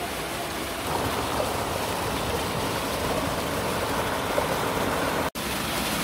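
Rushing river water, a steady noise that grows louder about a second in and cuts out for an instant near the end.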